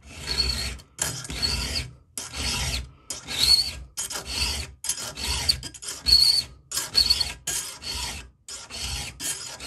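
Round chainsaw file pushed by hand through a saw chain's chrome-plated cutter tooth: about a dozen even rasping strokes, a little more than one a second with short gaps between, several with a brief high-pitched squeak. These are slow finishing passes that bring the tooth to its final sharp top-plate angle.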